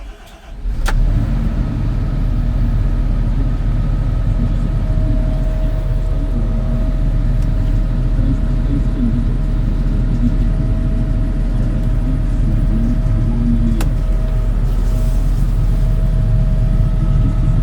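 Volvo EC300EL excavator's diesel engine starting up about a second in, then running steadily with a low drone and a faint steady whine above it.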